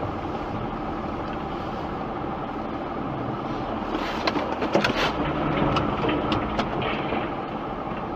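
Steady engine and tyre noise heard inside a car's cabin while driving on a snowy road, with a few light clicks between about four and seven seconds in.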